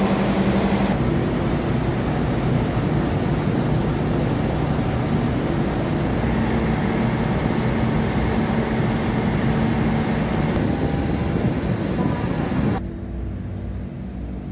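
Train's diesel engine running steadily, being warmed up, heard loudly from the platform; described as running very strong. About 13 seconds in, it gives way to a much quieter steady hum inside a coach.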